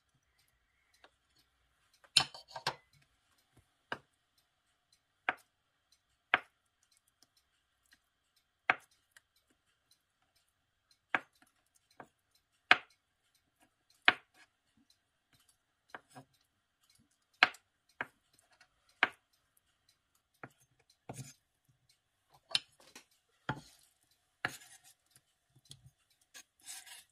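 Kitchen knife slicing a block of tofu on a wooden cutting board: single sharp knocks of the blade on the board, roughly one every second or so. Near the end the knocks come closer together, with a few short scraping sounds as the cut pieces are gathered.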